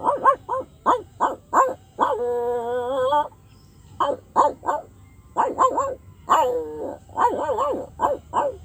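A dog barking in quick runs of short, high barks, with a long wavering whine about two seconds in and another drawn-out call around six seconds.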